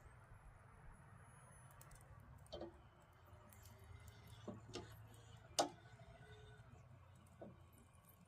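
Faint, scattered sharp clicks and knocks, about five of them, the loudest about five and a half seconds in, over a low steady hum.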